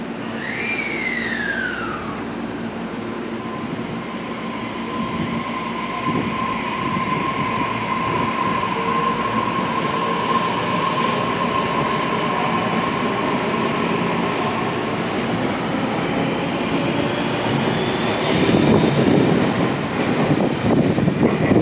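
Tobu Noda Line electric train pulling out of the station: its motor drive gives a falling whine in the first two seconds, then a steady whine and a faint rising tone as it gathers speed. Wheel and car rumble grows louder over the last few seconds as the cars roll past.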